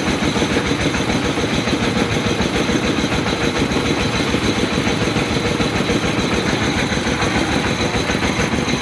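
Engine of a well-drilling rig running steadily, a dense rapid low chugging without change.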